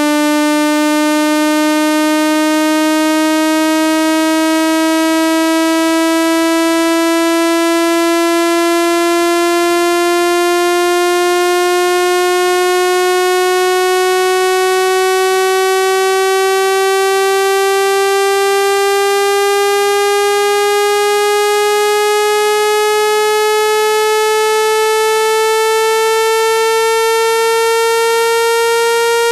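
Speaker-cleaning tone: a synthesized, buzzy tone rich in overtones, slowly and evenly rising in pitch at a constant loudness. It is a frequency sweep played to shake water and dust out of a phone speaker.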